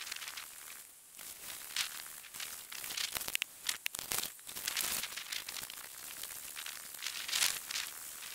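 Footsteps crunching in snow at a walking pace, an irregular series of crisp crunches.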